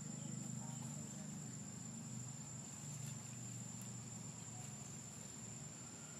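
Insects droning: one steady high-pitched tone, over a faint low hum.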